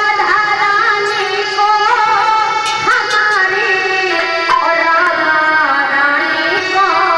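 Instrumental opening of a Hindi Krishna bhajan: a sustained melody with small ornamental pitch slides, with a few sharp percussion strokes.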